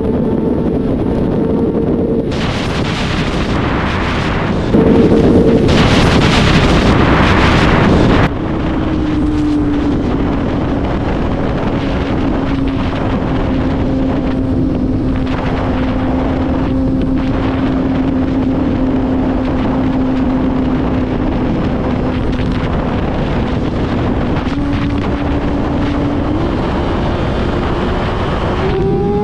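Kawasaki ZX-6R 636 inline-four engine running on the road, its note steady, dropping about eight seconds in and climbing again near the end as the bike picks up speed. Loud wind buffeting on the microphone from about two to eight seconds in.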